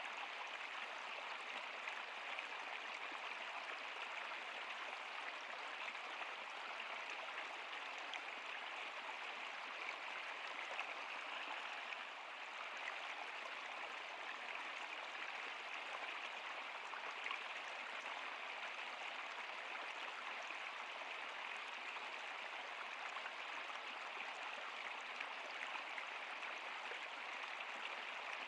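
Stream water flowing and splashing steadily in an even hiss, with small scattered splashes.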